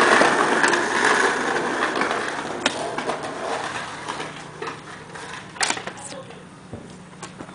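Skateboard wheels rolling on a concrete sidewalk, a rough rumble loudest at first and dying away over several seconds, with a few sharp clacks, the loudest a little past halfway.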